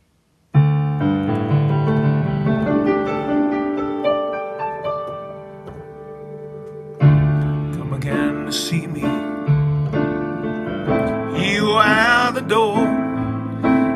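Piano introduction to a song: sustained chords played slowly, dying away to a softer patch before a loud new chord about halfway through. A singing voice with vibrato comes in over the piano near the end.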